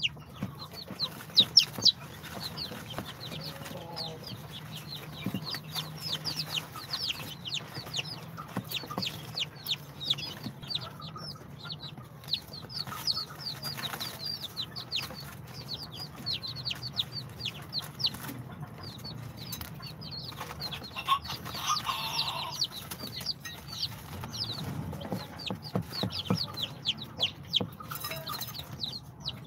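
A brood of day-old Brahma, bantam Cochin, Sultan and İspenç chicks peeping nonstop: many short, high, falling cheeps overlapping, several a second, over a low steady hum.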